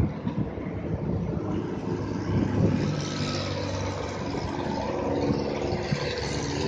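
Road traffic passing close by: motor vehicle engine and tyre noise, with a steady engine hum that sets in about two and a half seconds in.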